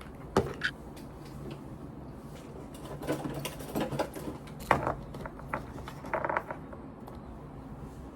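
Scattered small clicks and knocks of objects being handled, over a steady low room hum.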